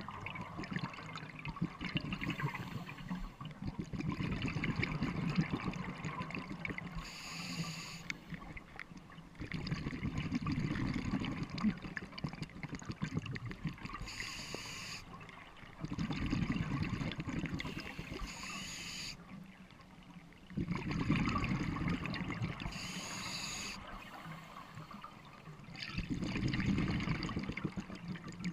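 Scuba diver breathing through a regulator underwater: a short hissing inhale followed by a longer, louder bubbling exhale, repeating about every five to six seconds, some five breaths in all.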